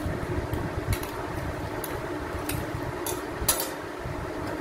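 A steel spoon scraping and knocking on a steel plate and plastic mixer jar while soft peeled tomato pieces slide in, a handful of short sharp clicks, over a steady background hum.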